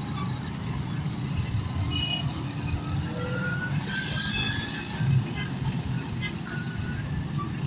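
Road traffic running steadily, a continuous low engine rumble, with a few short higher tones like horns or beeps during the middle seconds.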